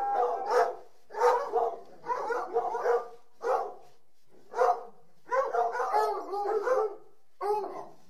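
Dogs barking in bursts of a few barks each, with short pauses between the bursts.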